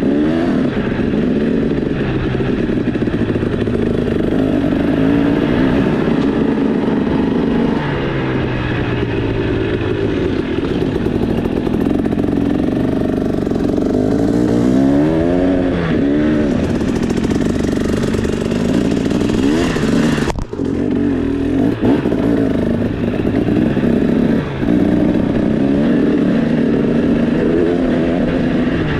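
Two-stroke KTM 300 EXC enduro bike with a Pro Circuit exhaust running under changing throttle, its pitch rising and falling several times, with a brief drop in level about twenty seconds in.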